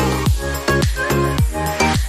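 Background electronic dance music with a steady kick-drum beat, about three beats a second, under sustained synth notes.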